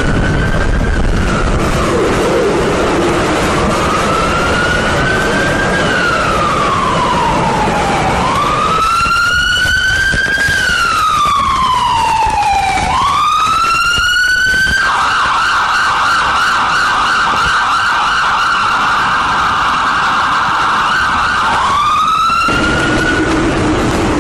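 Emergency-vehicle siren sounding a slow rising-and-falling wail. About fifteen seconds in it switches to a rapid yelp for several seconds, then goes back to the wail.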